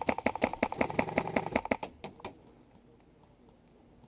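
Airsoft gun firing a rapid, even string of shots, about seven or eight a second, stopping about two seconds in, with one more shot shortly after.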